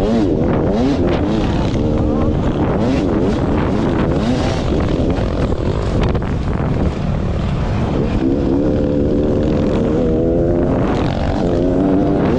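Beta 300RR two-stroke dirt bike engine being ridden hard, its pitch climbing and dropping again and again as the throttle opens and closes, with wind noise on the microphone.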